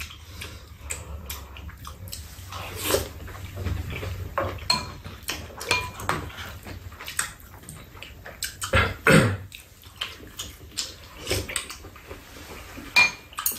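Spoons and chopsticks knocking against ceramic bowls, a metal pot and a metal tray during a shared meal: scattered clinks, some ringing briefly, with eating sounds between them.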